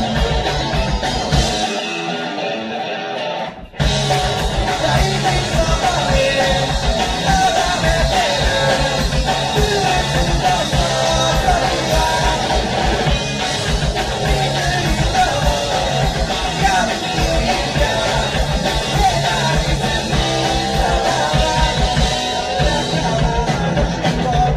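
Amateur garage rock cover band playing live in a rough, lo-fi recording: distorted electric guitars, bass, drum kit and a singer. About two seconds in, the bass and drums drop out and only the guitar carries on. There is a brief break, then the full band crashes back in and plays on steadily.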